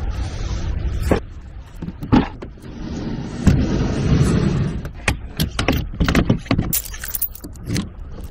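Clatter and knocks of fishing gear being handled and loaded: a trolling motor and battery, a small boat, a pickup's tailgate. A run of sharp knocks and clicks over a rumbling background.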